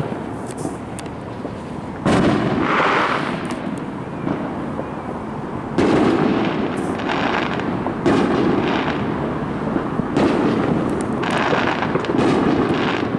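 Fireworks display: several booms a few seconds apart, each trailing off in a long rumble with crackling.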